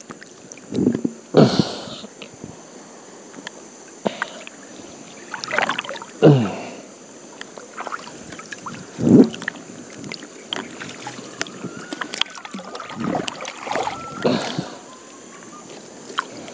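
Paddle strokes splashing in river water from a small boat, irregular and a few seconds apart.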